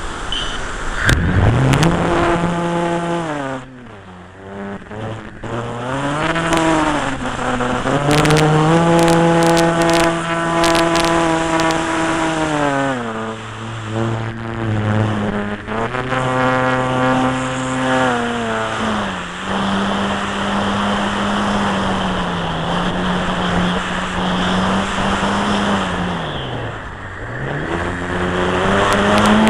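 Electric RC model airplane's motor and propeller whining, heard close up from the onboard camera. It spools up about a second in, then rises and falls in pitch again and again with the throttle, dropping low several times.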